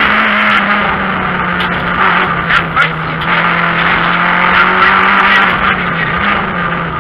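Renault Clio 3 RS rally car's two-litre four-cylinder engine running hard under load, heard from inside the cabin over loud rushing road and wind noise. The engine note sags slowly, dips and rises briefly about six seconds in, and settles lower near the end.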